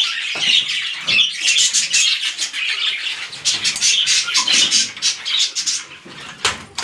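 Caged pet parakeets squawking over and over in harsh, high calls. There is a sharp knock near the end.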